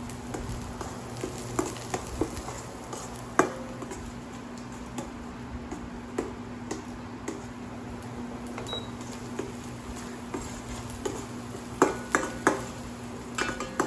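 Metal spatula knocking and scraping against a frying pan while stirring minced garlic frying in oil until golden brown. Scattered clinks, more frequent near the end, over a steady low hum.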